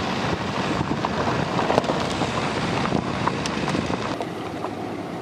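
Car driving on a loose gravel road: tyres crunching over the stones in a steady rush of noise, with a few sharp clicks of flicked stones, and wind buffeting the microphone.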